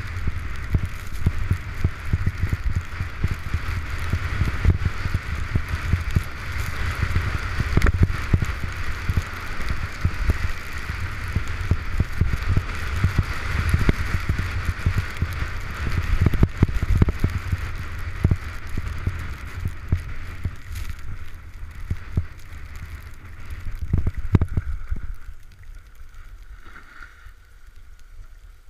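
Wind buffeting the camera's microphone with an irregular low rumble, over the hiss of skis sliding on packed snow during a downhill run. Both drop away sharply near the end as the skier slows to a stop.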